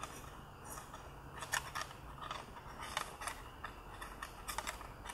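Soft scattered clicks and rubbing of a plastic dashboard air-vent assembly being handled as the gauge's thin wire is fed through it.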